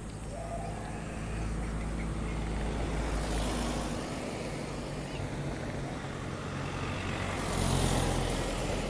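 Street traffic: motor vehicles driving past close by over a steady low engine rumble, one swelling past about three seconds in and a louder one near the end.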